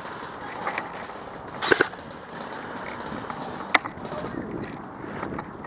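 A few sharp cracks over steady rustling: a quick cluster of them about two seconds in, and a single crack a couple of seconds later.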